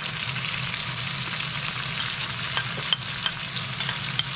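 Ground meat, sliced onions and diced tomato sizzling steadily in a hot frying pan, with a few light taps as a wooden spatula scrapes the tomato off a plate into the pan.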